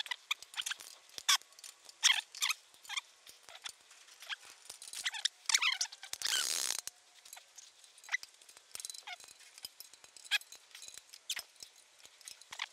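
Ratchet on the hand winch of a 30-ton hydraulic workshop press clicking as the winch is cranked: a run of sharp, irregular metal clicks, with a short noisy rush about six seconds in.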